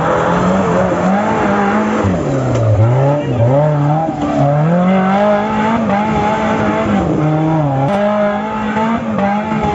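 A Maruti Suzuki Gypsy's engine revving hard under load, its pitch rising and falling repeatedly and held high for stretches, as the 4x4 spins its tyres through mud and climbs a steep dirt slope. Spray and churning mud hiss under the engine note.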